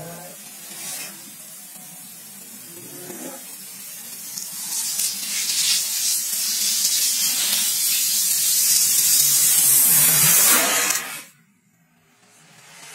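Liquefied gas escaping under pressure with a steady hiss that grows louder over several seconds, then cuts off abruptly near the end.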